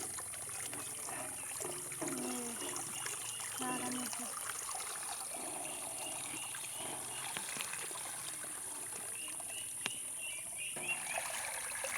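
Pond water trickling and dribbling, with faint voices in the background. A quick, high chirping repeats over the last few seconds.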